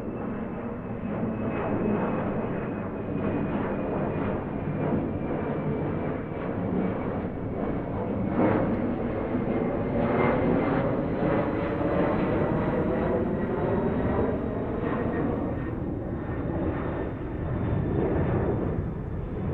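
Airplane flying over at medium distance: a continuous engine rumble with a thin high whine that slowly falls in pitch as it passes. It is loudest about halfway through.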